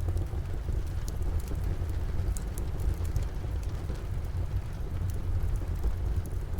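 Wood fire crackling in a fireplace, with scattered sharp pops, over steady rain and a low rumble.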